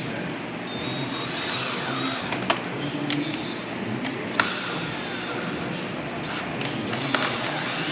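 Scattered sharp clicks and taps of hand tools and screws being handled on a motorcycle side cover, about six in all, over steady background noise.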